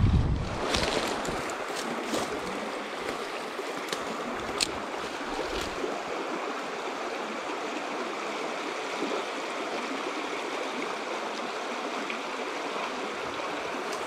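Shallow stream running over a stony bed, a steady rushing of water. A low wind rumble on the microphone dies away in the first second, and a few light clicks come through, the sharpest about four and a half seconds in.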